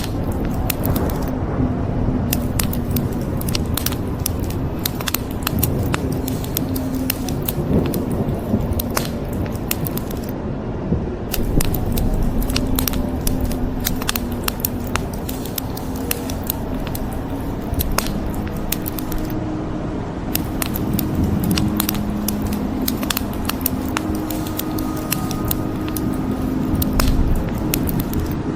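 Wood fire crackling, with frequent sharp pops and snaps over a steady low rumble.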